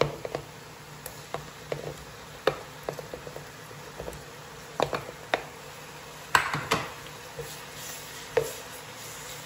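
A spoon knocking and scraping against a bowl and a non-stick pan as ginger-garlic paste is put into hot oil: scattered light clicks and taps, with a sharper pair of clatters about two-thirds of the way in, over a faint low hum.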